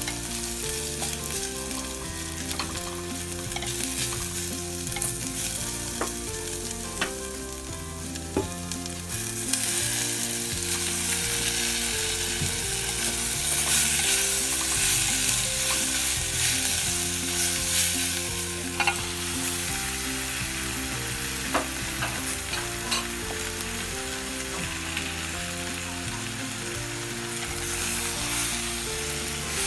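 Aromatics and chopped tomato sizzling in hot oil in an earthenware clay pot, stirred with a wooden spatula that knocks against the pot a few times. The sizzle gets louder about a third of the way in.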